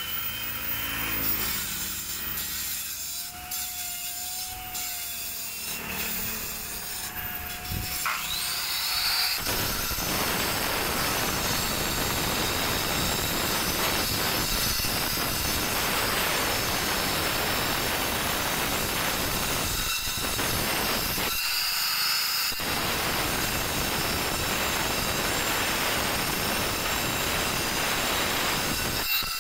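Handheld electric angle grinder spinning up about eight seconds in, then grinding and smoothing white stone with a steady, loud rasp. It is lifted off briefly twice near the two-thirds mark and spins up again.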